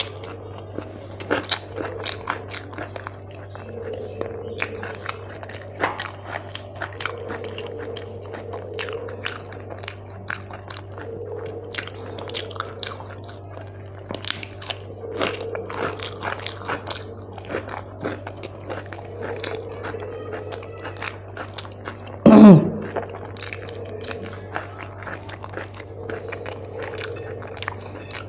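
Close-miked mouth sounds of a person eating: steady chewing with many crisp crunching clicks from bites of raw cucumber, over a low steady hum. About three-quarters of the way through there is one brief, loud sound that falls in pitch.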